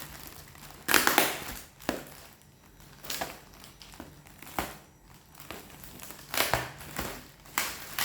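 Packaging being handled during an unboxing: plastic and paper crinkling and rustling in irregular bursts, the loudest about a second in.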